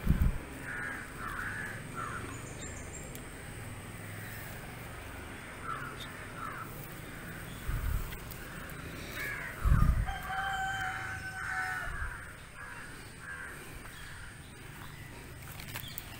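Crows cawing again and again, with a rooster crowing once about ten seconds in, a single held call. A few dull low thumps of handling noise on the microphone are the loudest sounds, at the very start and near the middle.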